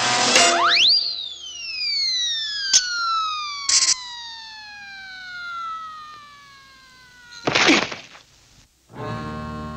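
Cartoon sound effects: a quick rising whistle, then a long falling whistle that slides down over about six seconds, broken by a short click and a brief crash-like burst. A loud crash comes about seven and a half seconds in. Orchestral music starts again near the end.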